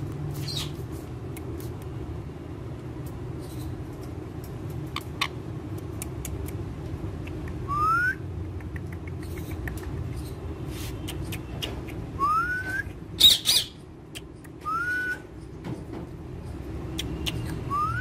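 Rose-ringed parakeets calling: a few short, rising whistled notes spaced several seconds apart, and one loud, harsh screech about two-thirds of the way through. A steady low rumble runs underneath.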